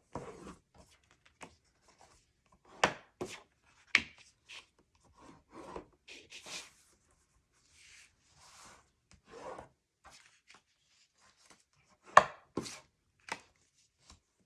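Cardstock pieces being handled and set down on a work table: scattered sharp taps and knocks with brief rubbing and sliding of paper between them, the loudest taps about three, four and twelve seconds in.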